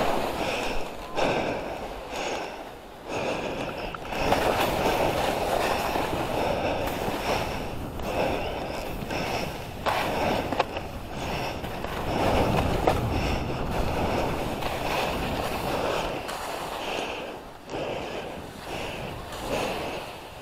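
Skis hissing and scraping through chopped-up powder snow on a downhill run, the noise swelling and fading over and over.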